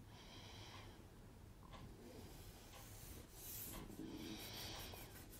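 Faint rustling and rubbing of paper sheets being slid into place and smoothed down by hand on a wooden board, once briefly near the start and again from about three seconds in.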